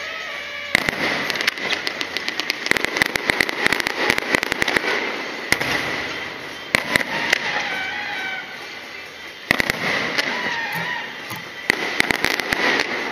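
Aerial fireworks going off in dense, rapid crackling volleys. A fresh volley starts about a second in, another near halfway, and two more in the last few seconds.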